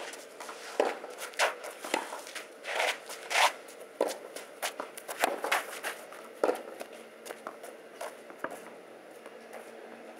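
Tennis rally on a clay court: racket strikes on the ball and ball bounces in a quick irregular series, with shoes scuffing on the clay. The hits thin out after about seven seconds as the rally ends.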